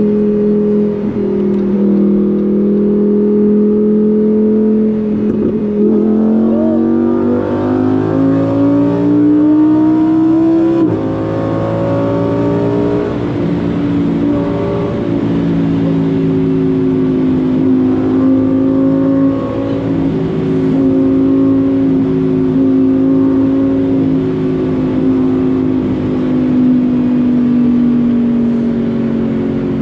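Lamborghini Huracán Performante Spyder's V10 engine running under way, its pitch climbing as the car accelerates from about six seconds in, then dropping suddenly on an upshift at about eleven seconds. After the shift it holds a steady, slightly wavering drone.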